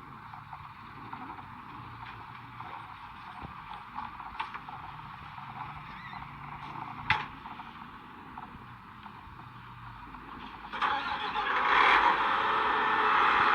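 Combine harvester running steadily in a wheat field, with a sharp click about seven seconds in; the noise gets clearly louder about eleven seconds in and stays loud.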